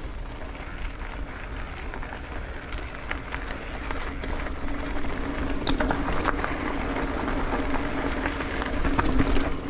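Wind rumble on the microphone and road noise from a moving bicycle, with light rattling clicks. About halfway through, a motor vehicle's steady engine hum comes in and grows louder toward the end.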